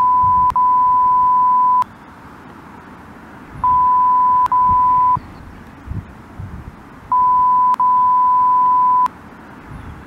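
Censor bleep: a steady single-pitch beep sounded three times. The first runs on until nearly two seconds in, then one of about a second and a half, then one of about two seconds near the end. A low rumble fills the gaps between the beeps.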